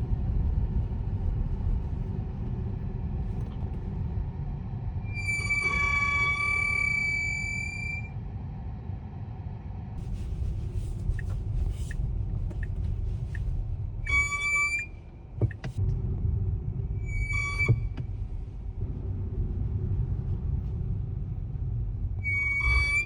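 Brakes of a 2025 Tesla Model Y (Juniper) squealing as the car slows: a high, steady squeal four times, the first about three seconds long and the others brief, over the low rumble of the moving car. The owner finds the squeak excessive, which Tesla calls normal.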